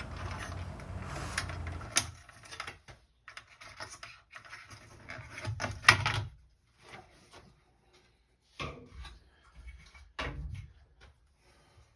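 Hands working on the plastic parts of a Clack water-softener control head: rubbing and handling for about two seconds, then scattered sharp clicks and knocks with quiet gaps, the loudest about six seconds in.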